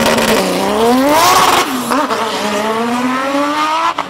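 Turbocharged 3.0-litre V6 TFSI engine of an Audi S4 quattro hillclimb car, held at steady revs on the start line, then launching. The revs climb steeply, drop at an upshift about a second and a half in, and climb again more slowly as the car pulls away.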